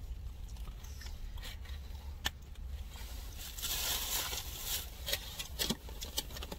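Food and packaging being handled while eating: soft rustling, scraping and scattered clicks, loudest as a rustle a little past the middle, over a steady low hum.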